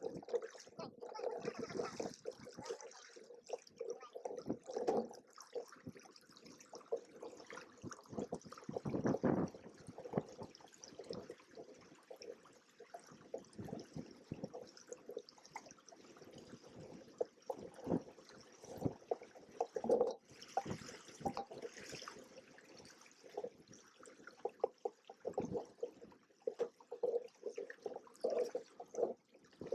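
Water splashing and slapping against the hulls of a Hobie Cat 16 catamaran, in irregular bursts.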